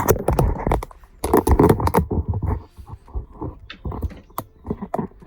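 Camera handling noise: irregular clicks, knocks and rustling close to the microphone as the camera is picked up and held by hand, busiest in the first couple of seconds.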